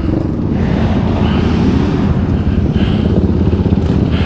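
Sport quad (ATV) engine running at low revs with an uneven, lumpy putter while the quad rolls slowly. Another quad's engine runs close alongside near the end.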